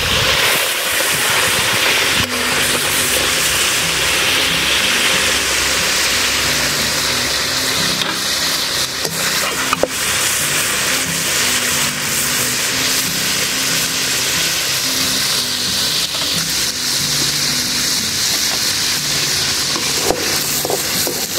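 Hot oil sizzling steadily in a metal pan as fried chicken liver pieces are lifted out with a slotted ladle, with a few clicks of the ladle against the pan.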